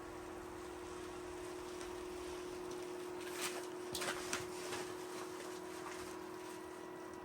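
Heat-powered fan on a Buddy propane heater running on the low setting, a steady hum over the heater's even hiss, with a few light ticks about three and a half to four and a half seconds in.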